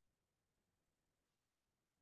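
Near silence: a digital quiet gap with no audible sound.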